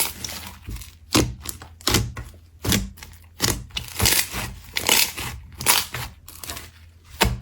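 Slime being squeezed and pressed by hand, giving a crackling, popping squish with each press, about nine or ten presses in a steady rhythm.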